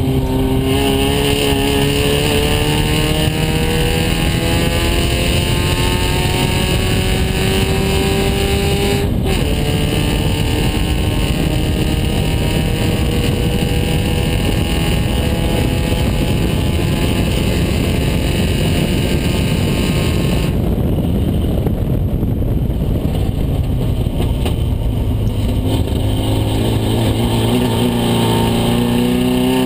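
Open-cockpit race car's engine at full throttle, pitch climbing through a gear for about nine seconds, a quick upshift, then climbing again. About two-thirds through the engine note drops off as the driver lifts, and near the end it starts climbing again under acceleration.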